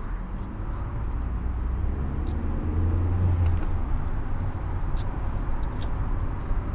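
Car engine and road noise heard from inside the cabin as the car drives off, a steady low hum whose engine note rises and is strongest about three seconds in. A few faint clicks sound over it.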